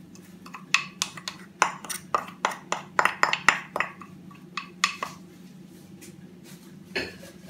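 Wooden spoon tapping and scraping against a ceramic bowl as chopped herbs are knocked out of it: a quick run of sharp taps, three or four a second, that stops about five seconds in. A steady low hum runs underneath.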